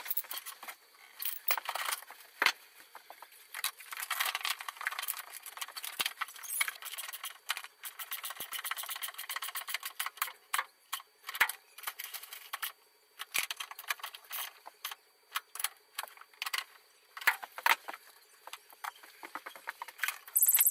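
Metal hand tools clinking, rattling and scraping against car parts in an engine bay, in irregular sharp clicks with denser scraping about four seconds in. A loud high-pitched buzz cuts in at the very end.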